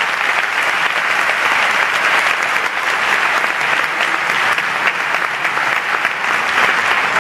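Concert audience applauding steadily, a dense, even clatter of many hands clapping.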